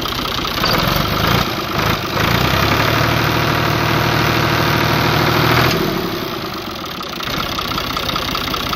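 Fiat 480 tractor's three-cylinder diesel engine running. It idles with an even knock, picks up speed about two seconds in and holds there for a few seconds, then drops back to idle.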